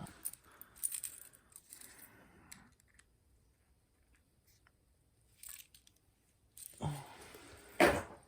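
A brass Zippo lighter and its insert being handled: scraping and light metallic clinks, then a sharp metallic click near the end.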